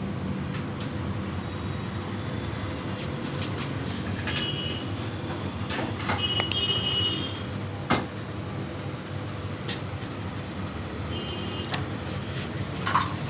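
Steady street traffic noise, with a few short high tones and several sharp clicks, the loudest about eight seconds in.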